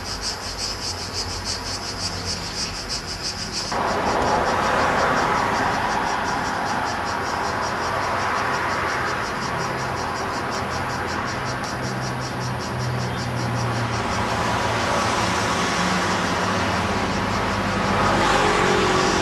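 Cicadas buzzing in a high, evenly pulsing chorus. About four seconds in, passing road traffic rises over them, swelling and easing as vehicles go by, while the cicadas carry on faintly underneath.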